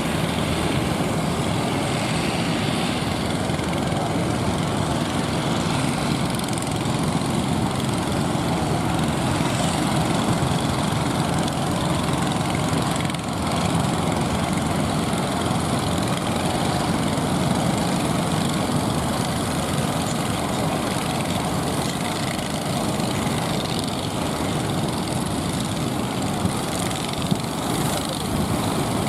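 Fishing boat engine running steadily.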